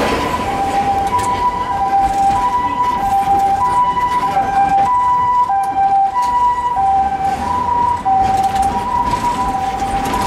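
Japanese ambulance siren sounding its two-tone hi-lo call, switching evenly between a higher and a lower tone about every half second. Underneath runs the steady noise of the Hiroshima Electric Railway class 100 tram moving along its rails.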